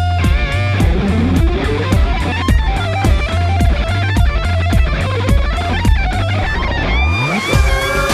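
Music: electric-guitar-led backing track with bass and a steady beat. About seven seconds in, a rising glide leads into a new section.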